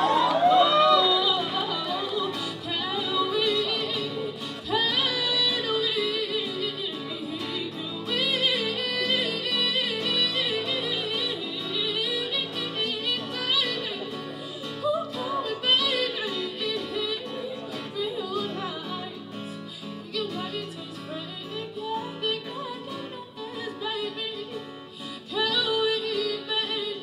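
A woman singing live while accompanying herself on an acoustic guitar.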